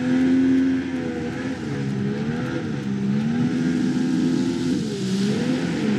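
Jet boat engine running under way, its pitch repeatedly dropping and rising again as the throttle changes.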